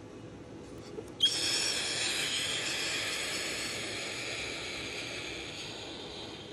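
Moluccan cockatoo giving a long, high, breathy whistling call that starts sharply about a second in and fades slowly over about five seconds.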